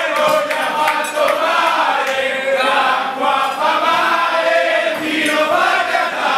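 A large group of men singing a song together in chorus, loud and unbroken.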